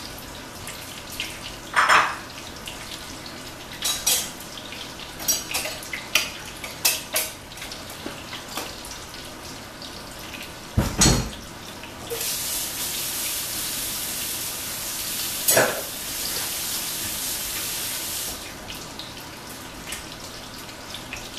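Dishes clattering as they are carried to and set down in a kitchen sink, with one heavy knock about eleven seconds in. Then a kitchen tap runs for about six seconds.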